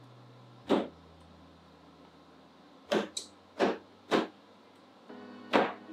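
A fork stabbed into the hard shell of a spaghetti squash half, five sharp clicks at uneven intervals, each short and crisp.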